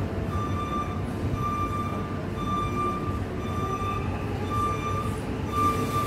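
A short electronic beep repeating about once a second over a low, steady rumble.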